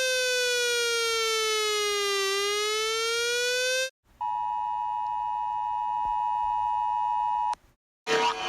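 A buzzy electronic alarm tone sliding slowly down in pitch and back up, cutting off after about four seconds. Then the Emergency Alert System's two-tone attention signal is held steady for about three seconds and stops abruptly.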